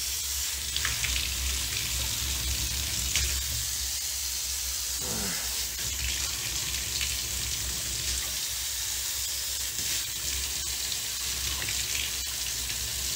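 Water running steadily from a bath tap into the tub, a continuous hiss; the water is not coming out hot.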